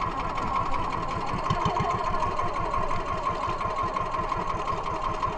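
Small engine of a motorized outrigger fishing boat running steadily at cruising speed, a fast, even chugging.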